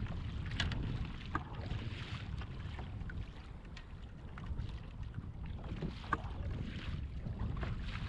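Wind noise on the microphone over water slapping and splashing against a moving kayak's hull, with scattered light ticks and splashes throughout.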